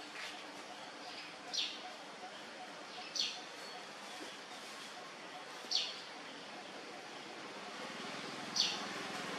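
An animal's short, high chirp call that sweeps downward in pitch, heard four times a second or more apart.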